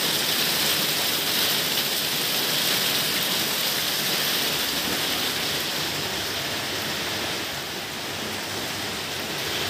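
Heavy rain pouring down in a steady, dense hiss, easing slightly in the last couple of seconds.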